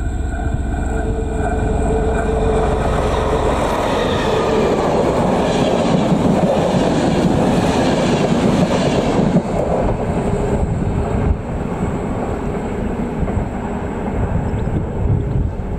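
ČD class 754 diesel-electric locomotive hauling a passenger train past. Its diesel engine drones at first as it approaches, and the sound grows into a loud rush as the locomotive goes by a few seconds in. The coaches' wheels then roll past more quietly.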